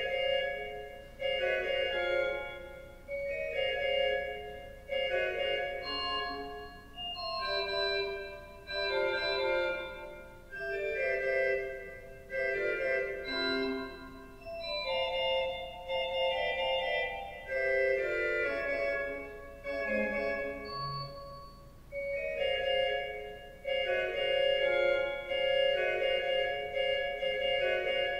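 Slow instrumental keyboard music: sustained chords, with a new chord starting about every two seconds and fading before the next.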